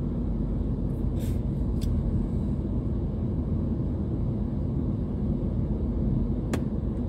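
Car engine idling in stopped traffic, a steady low rumble and hum heard from inside the cabin. A few light clicks come about a second in, and one sharp click comes near the end.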